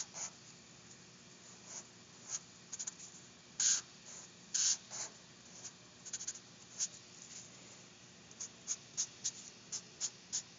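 Sharpie permanent marker drawing on paper: separate short strokes of the felt tip across the sheet, then a quick run of short strokes near the end.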